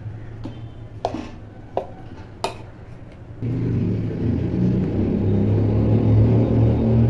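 A few light knocks of cookware being set down, then about three and a half seconds in a steady electric hum and whir starts suddenly: an induction cooktop switched on under the paniyaram pan, its coil buzzing and cooling fan running.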